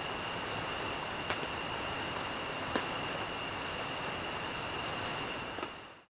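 Night insects calling: one gives a shrill, high-pitched chirp that swells and breaks off about once a second, four times, over another's steady high trill. The calls fade out about six seconds in.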